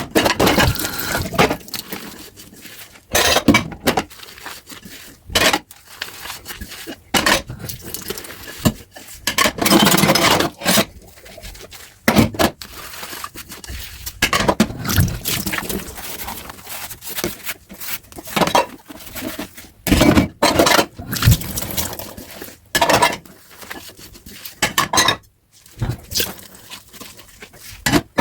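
Dishes being washed by hand at a sink: irregular clinks and knocks of plates and cutlery, with stretches of scrubbing and scraping and some water.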